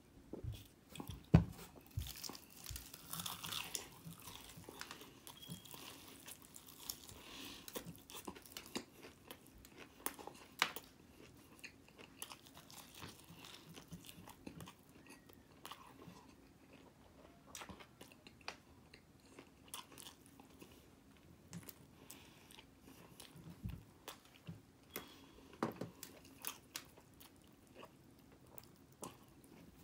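Chewing and crunching of breaded fried chicken wings, with irregular crunches and small clicks as meat is bitten and torn from the bones. One sharp knock a little over a second in.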